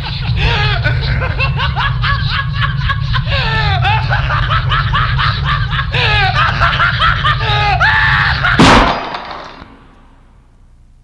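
A person laughing, with no words, over a steady low hum, then a single loud bang about eight and a half seconds in, the loudest sound. The laughing and the hum stop with the bang.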